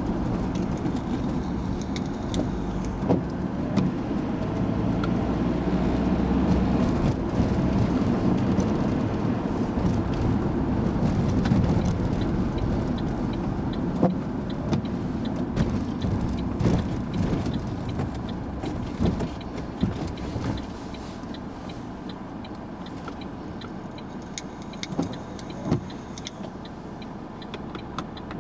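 Bus running along the road, heard from the driver's cab: a steady low engine and road rumble with scattered rattles and clicks. It quietens over the last several seconds as the bus slows and stops at a red light.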